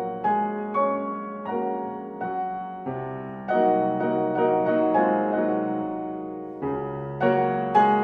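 Piano music: notes and chords struck one after another at a slow pace, each left to ring and fade.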